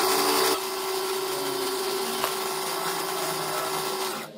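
Mini metal lathe running, its chuck spinning as the tool cuts a small brass part: a steady motor whine over scraping cutting noise, loudest for the first half second.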